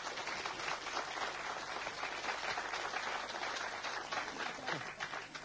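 Studio audience applauding, a dense spread of clapping that thins out near the end.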